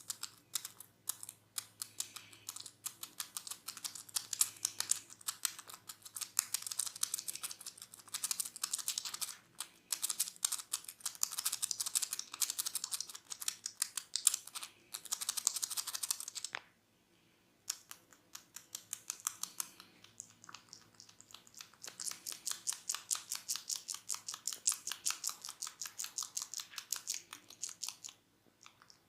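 Barber's hair cracking during a head massage: rapid, crisp crackling clicks from hair rubbed and snapped between the fingers close to the microphone, in long runs broken by a short pause a little past halfway and another near the end.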